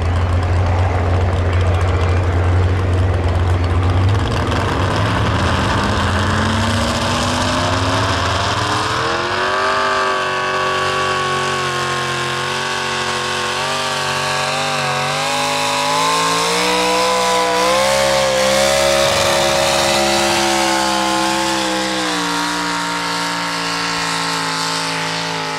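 Modified two-wheel-drive Chevrolet pull truck's engine at full throttle, dragging a weight-transfer sled down a dirt track. A loud low drone comes first; from about five seconds in, the engine note climbs in pitch, then holds at high revs with small wavers, and sags slightly near the end of the pull.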